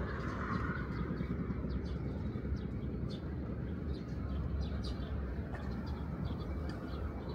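Outdoor city ambience: a steady low rumble of distant traffic, with scattered short, high bird chirps.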